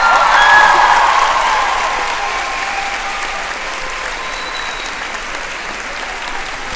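A large audience in a packed hall applauding, a dense ovation that peaks about half a second in and then slowly dies down.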